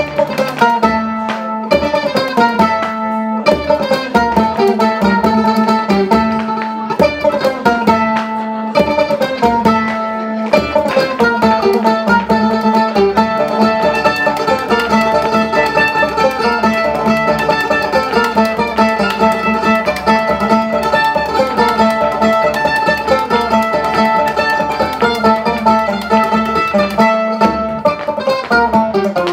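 Live folk band playing an instrumental passage led by plucked strings, with quick runs of picked notes over a steady low note and no singing.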